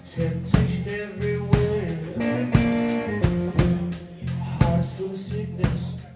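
Electric blues band playing: electric guitar and drum kit over a steady beat of about two drum hits a second.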